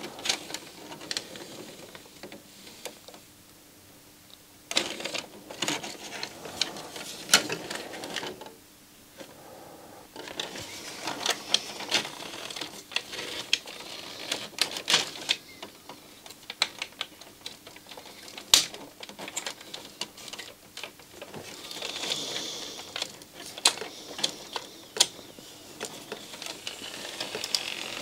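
Irregular clicks and rattles of a CD player's plastic loader mechanism being handled and turned over by hand.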